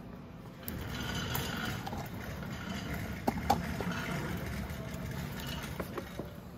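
A steady mechanical running sound for about five seconds, starting just under a second in, with a few sharp metal clicks in the middle, as the bolts holding an ATV's rear rack are taken out.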